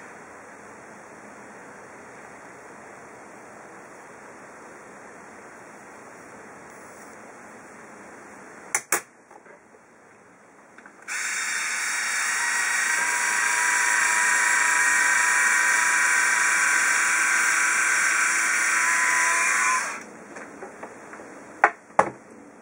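InStyler rotating-barrel hair iron's motor whirring for about nine seconds with a steady high whine as the turning heated barrel is run through a section of hair, stopping abruptly. Before it a faint steady hiss and a couple of sharp clicks, and a few handling clicks after.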